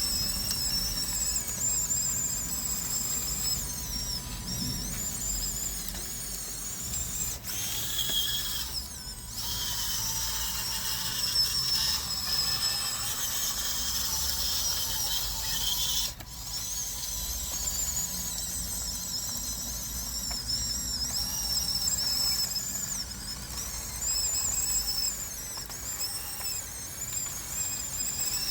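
Small electric motors and gearboxes of RC construction models whining as they work, high-pitched tones that wander up and down in pitch. The sound breaks off briefly twice, about a third and just over halfway through.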